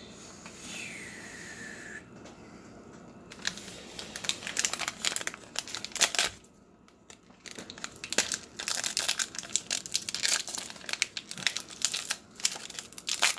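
Plastic packaging crinkling and tearing in irregular crackly bursts: a trading-card pack wrapper and card sleeves being handled and opened. There is a short lull about halfway through.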